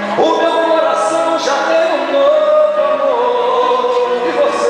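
A man singing into a microphone over accompanying music, holding long notes that slide from one pitch to the next.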